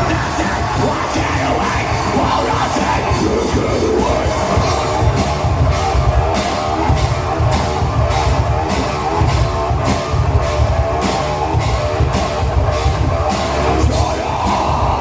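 Live rock band playing a full-band song, with drums, bass and guitars sounding together. From about five seconds in, steady drum hits come roughly twice a second.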